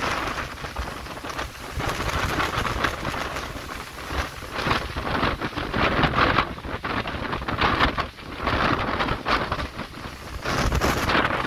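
Gusty wind blowing across the microphone over rough water, with a rushing hiss of spray and falling water that swells and fades every second or two.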